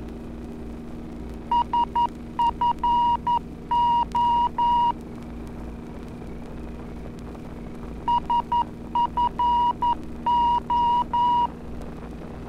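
Morse code identifier of the San Francisco VOR (omni-range) heard on the aircraft's navigation receiver: a keyed tone spelling S-F-O (dit-dit-dit, dit-dit-dah-dit, dah-dah-dah), sent twice, over a steady low drone.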